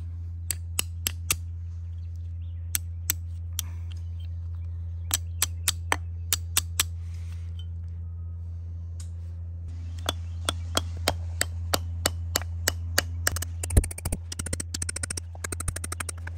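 Hammer striking a rusty steel drilled angle piton set in a drilled hole in rock, to loosen it: sharp metallic taps in short groups, settling to about three a second, then a fast run of quicker strikes near the end, the loudest hit just before it. A steady low hum runs underneath.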